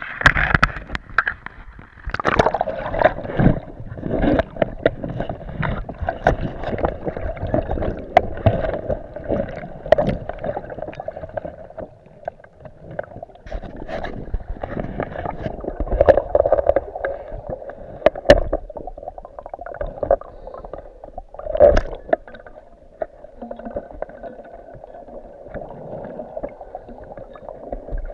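Surging water and gurgling, heard muffled through an action camera's waterproof housing underwater in shallow surf, with frequent small knocks and a few louder thumps in the second half.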